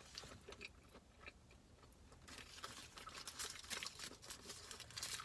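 Faint eating sounds: chewing on steamed buns, with the paper wrappers crinkling in the hands. Small scattered clicks and rustles become busier about two seconds in.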